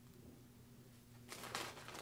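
A short rustle of a plastic snack bag being handled, starting about a second and a half in and lasting about half a second, over a faint steady hum.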